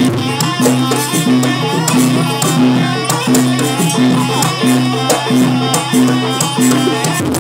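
Live jaranan gamelan accompaniment playing a fast sampak piece, with a steady pulsing beat and dense percussion.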